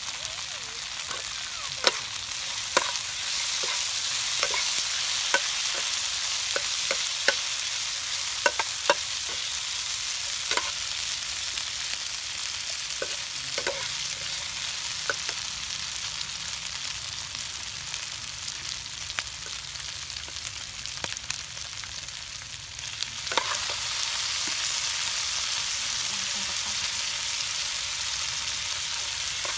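Pork pieces sizzling in hot oil in a nonstick frying pan, with a steady hiss, as a metal spatula stirs them, its edge clicking and scraping against the pan, most often in the first half. The sizzle eases briefly and then swells again about three-quarters of the way through.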